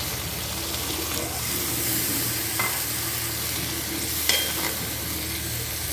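Chicken curry sizzling in a black kadai as broth and chopped coriander go in, with a steel ladle stirring. Two sharp clicks of the ladle against the pan come around the middle.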